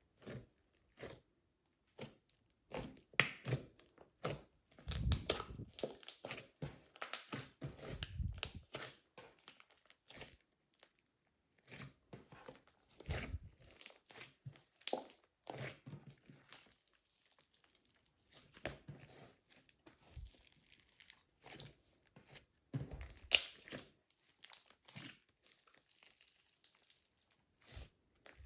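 Slime being squeezed and kneaded in a plastic bag: irregular crinkling and crackling of the plastic with occasional louder squishes.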